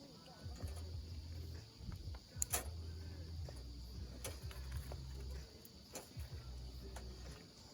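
Crickets chirping steadily, with a few sharp clicks and a low, uneven hum underneath.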